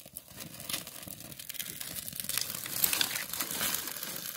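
Dry twigs rustling and clicking against each other as they are pushed together by hand over a small kindling fire. The clicks grow busier and louder from about two seconds in.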